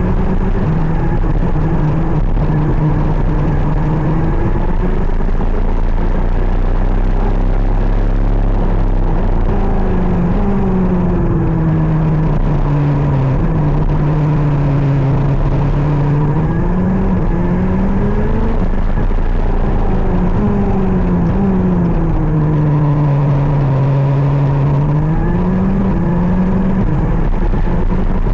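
KZ 125 shifter kart's two-stroke engine running hard on track, its pitch falling and rising again several times as it slows for corners and accelerates out of them.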